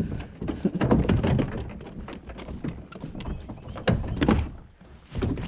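Irregular knocks and thumps close to the microphone over a low rumble, loudest about a second in and again around four seconds in.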